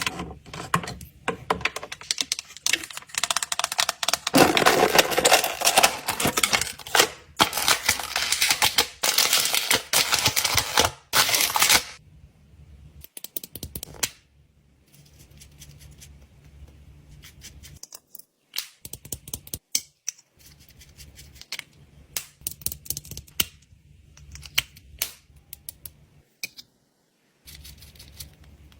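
Small hard objects clicking and clattering as they are handled, dense and continuous for about the first twelve seconds, then scattered single clicks over a faint low hum.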